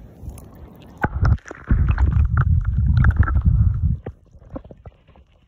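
River water sloshing and splashing right at the microphone as a hand releases a brown trout underwater: a loud low rumble with small clicks and splashes for about three seconds, starting about a second in and stopping sharply near the four-second mark.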